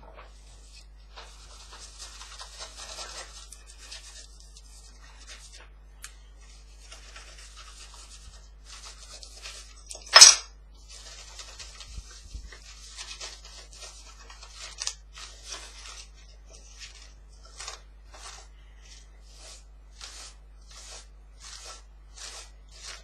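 A cloth wetted with acetone rubbed over a sanded copper-clad board, cleaning the copper: scratchy wiping strokes, spaced about one to two a second in the second half. A single sharp knock near the middle is the loudest sound.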